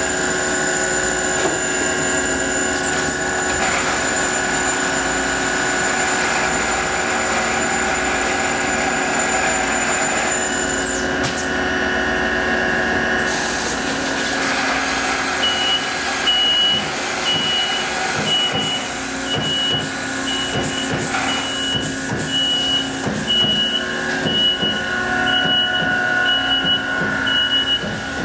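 Amada turret punch press and its automated sheet-handling system running, a steady machine hum made of several tones. About halfway through, a high warning beep starts repeating roughly every 0.7 s, with scattered sharp clicks.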